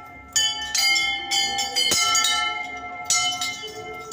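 Hanging metal temple bell rung by hand, struck about four times, each stroke ringing on and overlapping the last before fading.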